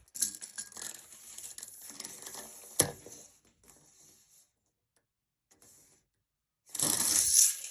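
Tape-measure and handling noise during room measuring: rustling and scraping with a sharp click about three seconds in, then a pause, then a louder burst of rushing noise near the end.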